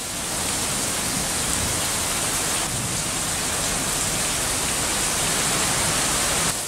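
Heavy rain falling, a steady even hiss of downpour that fades in at the start and fades out near the end.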